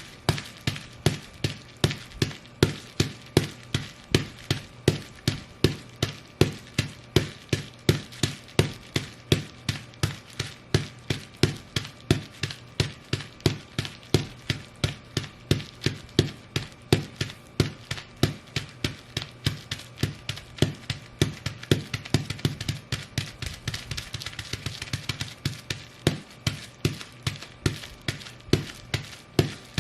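Ugg sheepskin boots stomping steadily on bubble wrap, about two steps a second, each a short sharp thump. For several seconds past the middle, a denser crackling rises under the steps.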